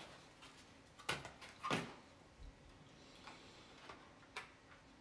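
Pieces of a 3D stadium puzzle model being handled and fitted: light clicks and taps, the two sharpest between one and two seconds in.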